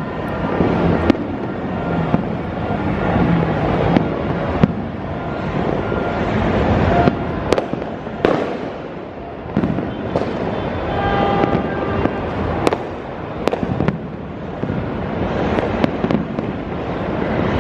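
Many fireworks going off at once: a continuous rumble of overlapping blasts, broken by frequent sharp cracks and pops.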